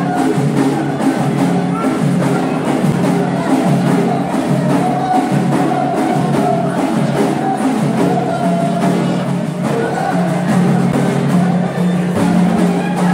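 Moroccan folk troupe performing: many hand-struck frame drums (bendir) beating a steady rhythm under a group of men's voices singing together in long held notes.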